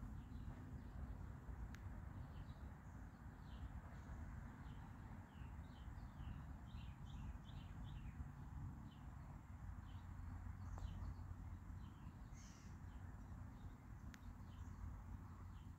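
Small birds chirping in quick short notes, densest in the middle, over a steady low outdoor rumble. A faint sharp tick sounds once near the start and once near the end.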